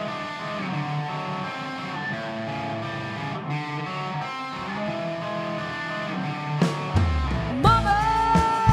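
Electric guitar playing a clean picked rock riff alone. About seven seconds in, the drums and bass guitar come in and the full rock band plays.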